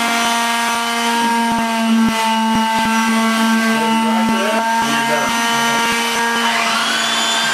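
Woodworking shop machinery running steadily with a constant hum and whine, loud enough to make it a loud shop; about six and a half seconds in a broader hiss swells up over it, typical of a power tool working wood.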